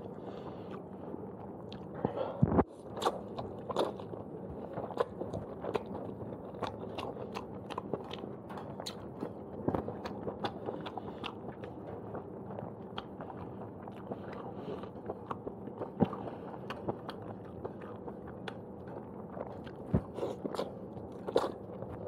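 Close-miked chewing of fried udon noodles with scrambled egg: many sharp wet mouth clicks and smacks, with slurping of noodles near the end.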